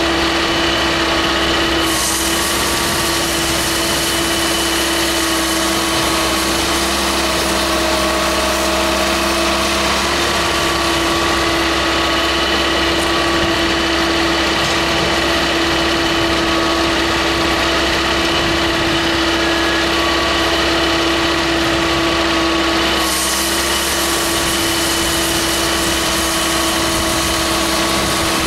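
Firewood processor running, a steady engine-driven machine hum with a constant whine. A high hiss joins in about two seconds in and drops away about five seconds before the end.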